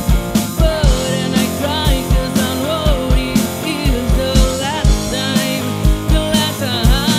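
Live band playing a rock-style song: drum kit with a steady kick drum, electric bass and electric guitar, with a woman singing the melody.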